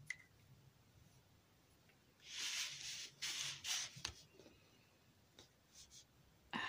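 A permanent marker being drawn across a flattened cardboard carton: a few short strokes between about two and four seconds in, then a few small ticks.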